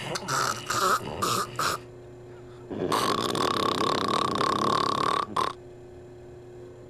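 A man snoring: a quick run of short snorts, then one long, rough snore of about two and a half seconds.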